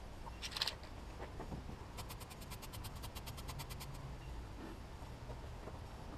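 Hands handling small metal engine parts: a short clatter about half a second in, then a quick, even run of sharp clicks, about ten a second, for some two seconds.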